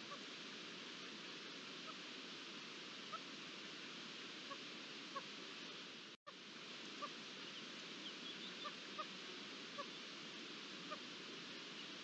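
Faint, short, soft calls of red-legged partridges, roughly one a second, over a steady outdoor hiss; the sound cuts out for a moment about six seconds in.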